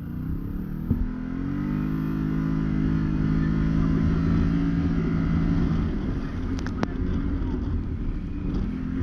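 Can-Am Maverick Sport X mr side-by-side's V-twin engine accelerating: it climbs in pitch over the first second or so, holds steady at speed, eases off about six seconds in and picks up again near the end. A few sharp knocks come about seven seconds in.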